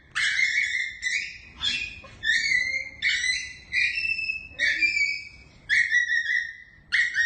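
An animal calling over and over in high, squeaky notes, about one a second, each a short held or stepped note.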